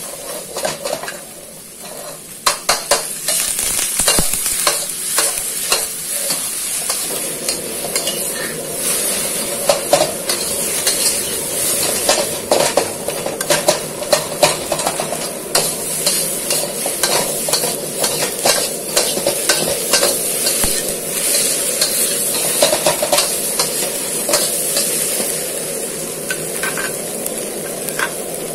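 Scrambled egg and diced tomato sizzling in a hot wok, with a metal spatula stirring and scraping against the wok in frequent quick strokes. The stirring starts about two seconds in; before that only the steady sizzle is heard.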